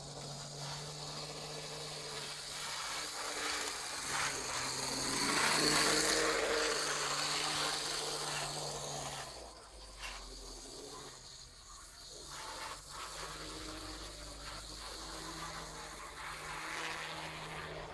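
Lima OO-gauge Class 117 diesel multiple unit model running on garden track: a steady motor hum with a whirring, hissing rattle of wheels on rail that grows louder as it passes close about six seconds in, then fades as it runs away.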